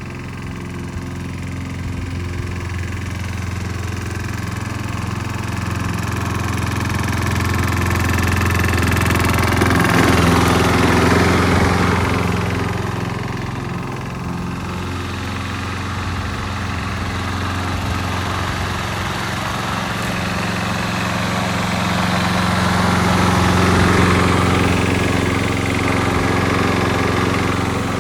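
Small lawn mower engine running steadily, growing louder about ten seconds in, easing off, then swelling again near the end.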